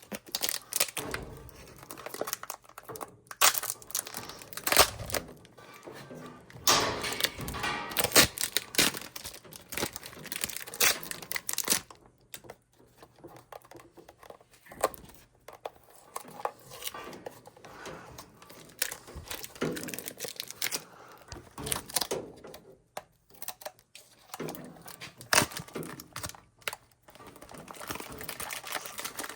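Hands working on low-voltage thermostat wiring: irregular crinkling and rustling with many sharp clicks and ticks, coming in bursts with short pauses between.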